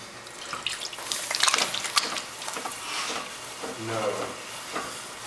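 Water and wet clay being worked by hand on a potter's kick wheel: a run of wet splashing and sloshing sounds about a second in, quieter afterwards.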